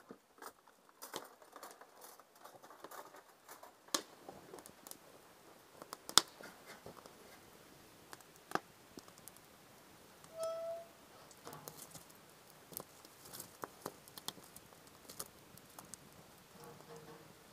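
A wood fire burning in a steel chiminea, crackling with scattered small clicks and a few sharp pops. One short squeak comes about ten seconds in.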